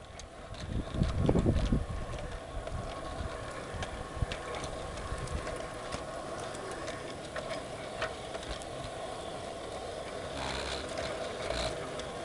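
Large-scale garden railway model train running on LGB track, heard from on board: a steady motor hum with scattered clicks of the wheels over rail joints, and a louder rumble about a second in.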